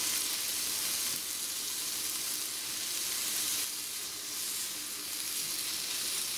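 Thick slices of braised pork belly sizzling in a small grill pan over a wood-burning camp stove's open flames, a steady hiss while they are turned with chopsticks.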